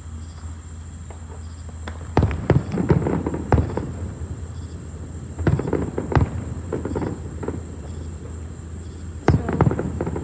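Fireworks going off in three quick volleys of sharp bangs and crackles: about two seconds in, about five and a half seconds in, and near the end.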